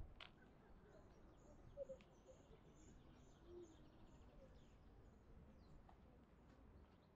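Near silence with faint outdoor ambience; a bird gives a faint run of short, high chirps, about three or four a second, starting about a second in.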